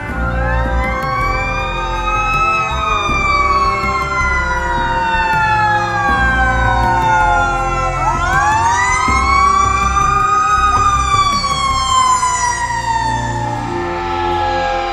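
Fire apparatus sirens wailing, several overlapping. About eight seconds in, one siren climbs sharply and then falls away slowly as the apparatus comes close, over the low rumble of the trucks.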